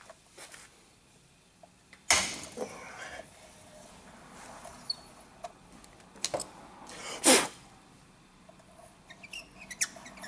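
Metal clunks and clinks of a hand tool and a 15 mm deep socket being worked on a diesel injector's nozzle cap in a steel bench vise. There is a sharp knock about two seconds in, a louder one around seven seconds with smaller ones just before it, and light clicks near the end.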